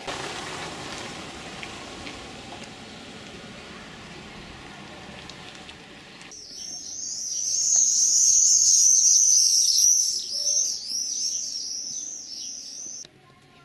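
A steady rushing background noise, then about six seconds in a dense chorus of shrill, rapidly repeated bird calls that lasts about seven seconds and cuts off abruptly near the end.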